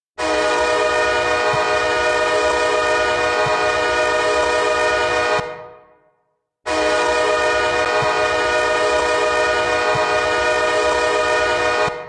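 Hockey arena goal horn, a chord of several steady notes, sounding two long blasts of about five and a half seconds each, each starting sharply and fading out briefly at the end.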